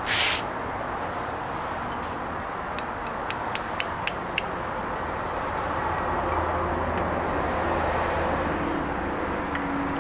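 Metal tongs clicking and tapping against the pieces of a gravity ingot mold and the steel stand as the mold is opened, a quick string of sharp clicks a couple of seconds in, over a steady rushing background. A brief loud burst of hiss right at the start.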